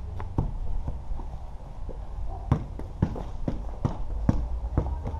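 A basketball bouncing on a concrete patio mixed with quick sneaker footsteps: about a dozen sharp, irregular knocks, over a steady low rumble.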